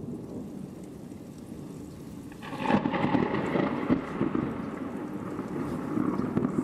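Thunder in a winter thunderstorm: over a steady background of falling precipitation, a rumble swells suddenly about two and a half seconds in and goes on with uneven peaks.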